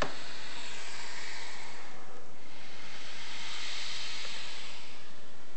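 Python molurus hissing twice, two long breathy hisses of about two seconds each, the second one louder.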